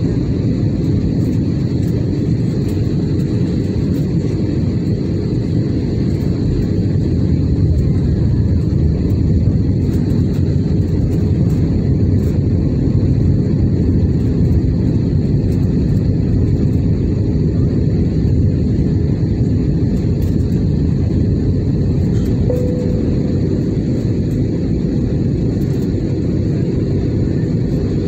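Steady cabin drone of a jet airliner in flight, heard from a window seat: engine and airflow noise, deep and unchanging.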